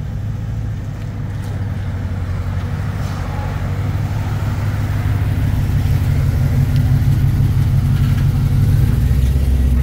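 GMC 100 pickup's engine running through open headers: a steady low rumble that grows louder as the truck pulls up and idles.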